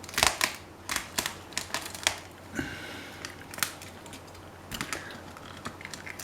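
Yabby being cut down the middle through its hard shell: a run of sharp, irregular cracks and clicks, loudest in the first couple of seconds.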